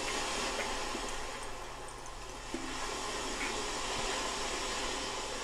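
Lemon hydrosol poured in a thin stream from a glass flask through a stainless steel funnel into an amber glass bottle: a steady trickle of liquid filling the bottle.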